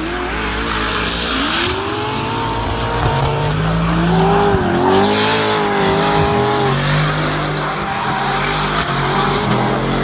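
Drift car engine revving hard, its pitch rising and falling with the throttle, while the rear tyres squeal and spin as the car slides sideways through a corner.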